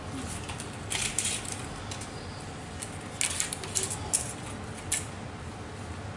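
Paper patty pans (cupcake cases) rustling and crinkling in short bursts as they are handled and set out, about a second in and again several times from about three to five seconds in.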